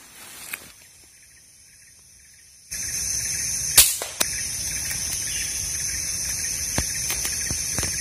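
A single sharp air-rifle shot, the loudest sound, about four seconds in. It follows a steady high-pitched insect drone that comes in abruptly about three seconds in, and a couple of fainter snaps come after it.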